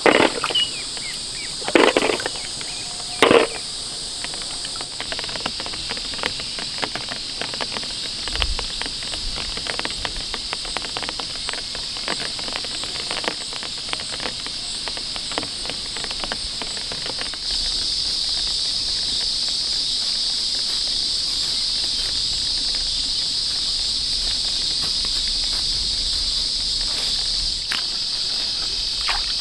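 A steady, high-pitched chorus of insects chirring, growing louder about two-thirds of the way through. Three loud sudden knocks come in the first few seconds, and faint ticks and small splashes run throughout.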